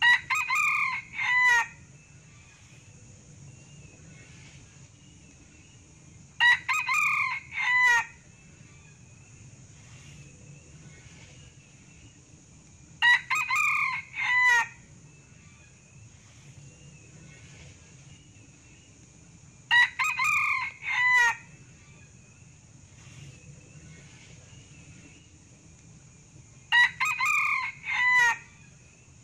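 Male Sumatran red junglefowl crowing five times, about once every six and a half seconds. Each crow is short, about a second and a half, and ends in a clipped final note.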